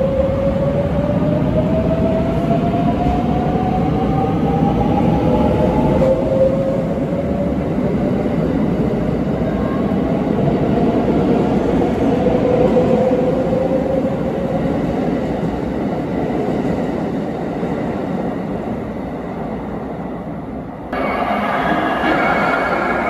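A limited express electric train pulls away along the platform. The rolling rumble of its cars runs under a motor whine that rises in pitch as it speeds up. About 21 s in, the sound cuts abruptly to a different train approaching.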